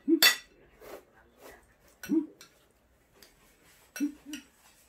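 Spoons and forks clinking and scraping on ceramic plates and bowls while eating, a few sharp clinks spaced about two seconds apart, with two short sounds close together near the end.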